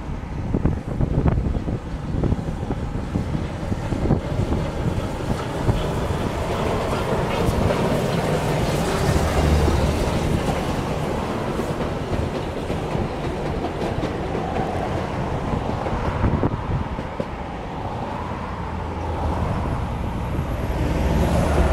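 Rx-class 4-6-0 steam locomotive and its carriages passing close by on the rails, a steady rumble with clicking wheels. It is loudest about ten seconds in, as the locomotive goes past.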